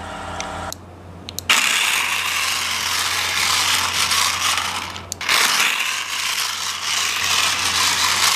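Toy remote-control car driving across a concrete floor: its small electric drive motor and plastic gears give a loud, gritty whirring that starts about a second and a half in, drops out briefly around five seconds, then carries on.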